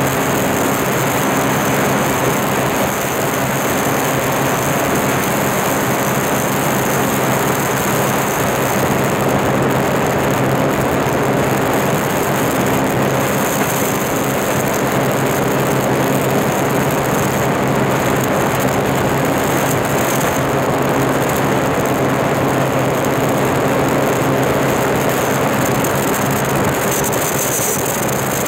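Sea-Doo Spark personal watercraft's 900 HO ACE three-cylinder engine running steadily at speed, with wind and water rushing past the microphone.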